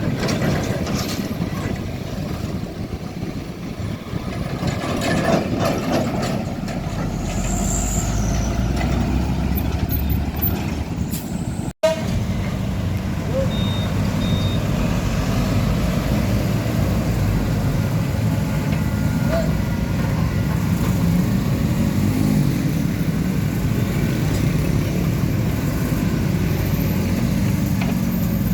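Heavy diesel trucks running on a road with traffic noise, a deep rumble swelling in the first half. The sound cuts out for an instant about 12 seconds in, and two short high beeps follow a couple of seconds later.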